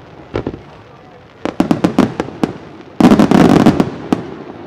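Aerial firework shells bursting overhead as sharp bangs: a couple early, a rapid run of about six about a second and a half in, then a dense, loud cluster of cracks about three seconds in, and one last bang near the end.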